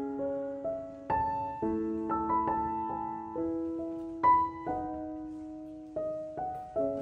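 Background music: a slow, gentle piano melody of single struck notes, each left to ring and fade.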